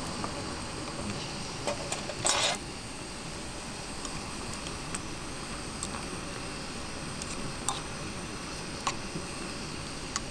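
Scattered light clicks and knocks of small objects being handled, with a short louder rustle or scrape about two seconds in, over a steady low hiss.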